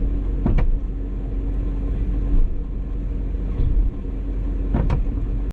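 A vehicle engine running steadily with a low rumble and a constant hum, with two sharp clicks, one about half a second in and one near the end.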